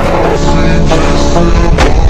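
Loud background music with heavy bass and sustained tones, and a sharp percussive hit near the end.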